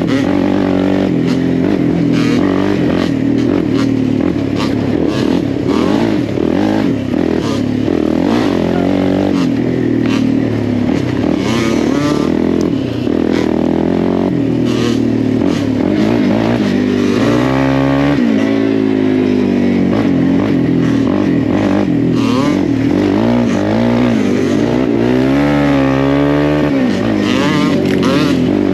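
Single-cylinder off-road quad or dirt-bike engine running under riding load, its pitch rising and falling with the throttle. It is revved up and down quickly about two-thirds of the way in and again near the end, with scattered knocks and clatter over the engine.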